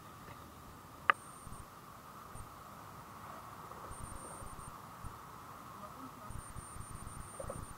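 Insects trilling in short high-pitched runs over a steady high hum, with one sharp click about a second in and a few faint bumps.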